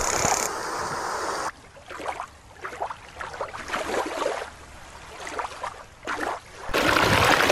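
Shallow stream water running over rocks, cut off sharply about a second and a half in by a quieter recording of a killer whale splashing in a show pool: irregular short splashes and bursts of water noise. The stream sound comes back near the end.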